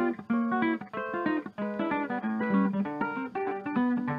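Background music: acoustic guitar playing a quick picked melody.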